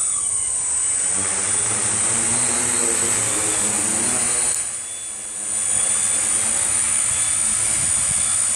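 Tarot Ironman 650 quadcopter's electric motors and propellers, a steady buzzing hum with a high whine on top as it flies. The hum dips briefly about halfway through, then comes back to full level.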